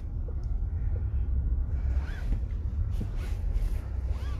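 Low, steady road and engine rumble inside a moving car's cabin, with two faint high chirps about halfway through and near the end.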